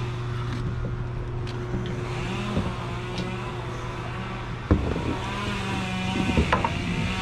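A motor running steadily with a low, even hum, and a few sharp knocks about halfway through and again near the end.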